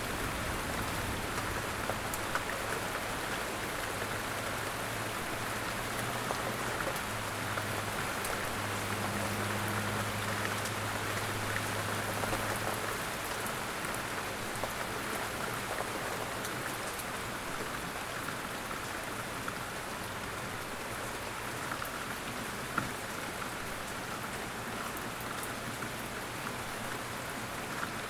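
Light rain falling steadily, with individual drops ticking through the even hiss of the rainfall.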